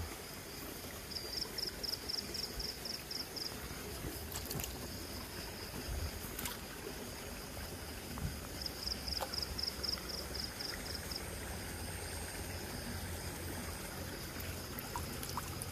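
Shallow stream water sloshing and swirling as a hand net is swept through it, with a few small knocks. Twice, an insect chirps in a rapid high trill, about a second in and again around eight seconds.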